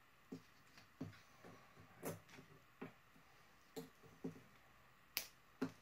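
About a dozen faint, scattered clicks and taps of small plastic parts being handled: a roll of insulation tape and a plastic wire-harness plug moved and set down on a workbench.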